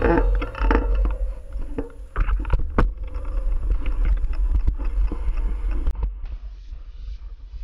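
Mountain bike rolling slowly over a rough dirt trail, heard through a handlebar-mounted camera: a steady low rumble and wind buffeting, with scattered clicks and knocks from the bike rattling over the ground. It gets somewhat quieter about six seconds in.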